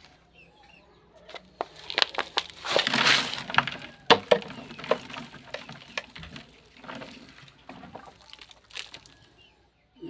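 Rustling and crackling as a flamboyant sapling's feathery leaves brush close to the microphone while it is being planted, with scattered sharp clicks; the loudest stretch is about three seconds in.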